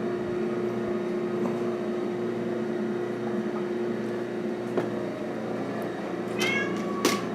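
EFM coal stoker boiler running, with a steady fan-like hum and a constant tone. Near the end a cat meows briefly.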